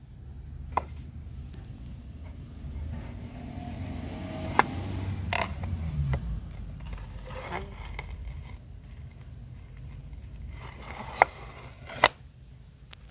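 Marble tiles clicking and scraping against each other as a hand handles the edges of the stack: a handful of sharp clicks, two close together near the end, over a steady low rumble.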